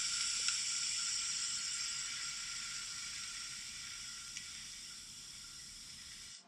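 TIG welding arc on 1-inch carbon steel pipe at a socket weld, laying the root pass: a steady hiss that slowly fades and cuts off abruptly near the end.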